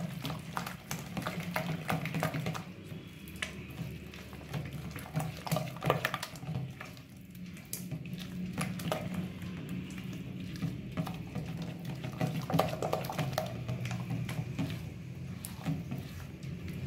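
A hand mixing thick maida-and-curd batter in a steel bowl: irregular wet squelches and slaps with many short clicks, over a steady low hum.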